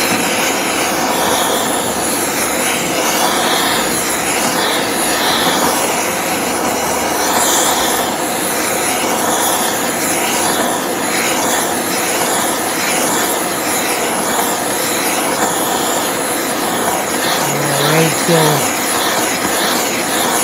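Handheld gas torch burning with a steady hiss as its flame is played around an aluminium crankcase half, heating the bearing bore so it expands and lets go of the crankshaft bearing.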